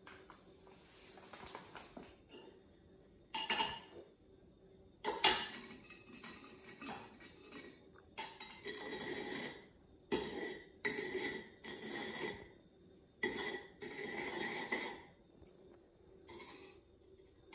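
Sugar poured from a paper bag onto a ceramic plate, then a drinking glass rim-down being twisted in the sugar: gritty scraping of glass on sugar and plate in strokes about a second long, repeated several times. A sharp knock on the table about five seconds in is the loudest sound.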